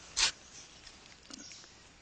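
A blade chops into a tree trunk's bark once: a short, sharp, scraping hit, followed about a second later by a much fainter tick.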